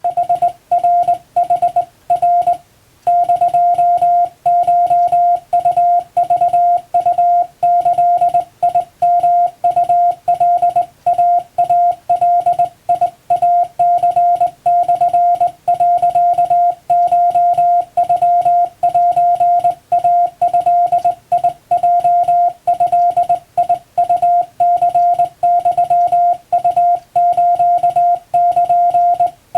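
Japanese wabun Morse code sent on a hand key: one steady beep tone keyed on and off in quick short and long elements, with a brief pause about three seconds in.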